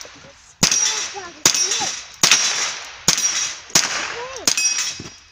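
Marlin Model 60 semi-automatic .22 rifle firing six shots in a steady string, about one every three-quarters of a second, at steel targets; each shot is followed by a short ring of steel. These are the last rounds in the magazine.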